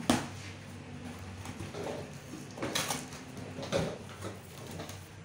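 Cardboard box flaps being pulled open by hand: a sharp scrape of cardboard just after the start, then more scraping and rustling of the flaps about three and four seconds in.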